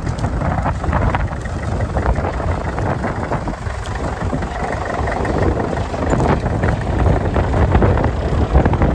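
Tractor engine running steadily at a ploughing match, mixed with wind buffeting the microphone.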